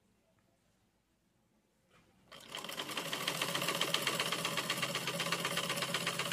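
Old black sewing machine, silent at first, then starting about two seconds in and stitching fast and steadily through fabric.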